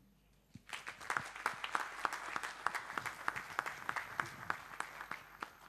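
Audience applauding, a dense patter of many hands clapping that starts about half a second in and thins out near the end.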